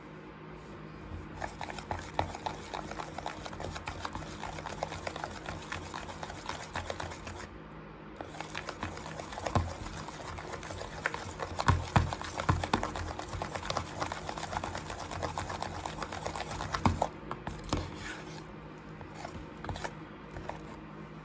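Silicone spatula stirring a thick, sticky shampoo and baking soda slime in a plastic tub: a rapid run of wet squelching and crackling, with a short pause about a third of the way in and a few louder squelches in the middle. It thins out to scattered small clicks near the end.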